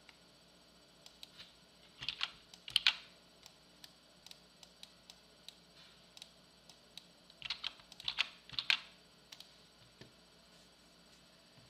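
Computer keyboard being typed on: scattered key clicks, with two short runs of louder, quicker key presses about two seconds in and again around eight seconds in.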